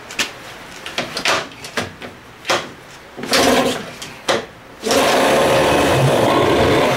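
Johnson 15 hp outboard engine pull-started from cold with the choke out: several sharp pulls on the starter rope, then it catches about five seconds in and runs steadily.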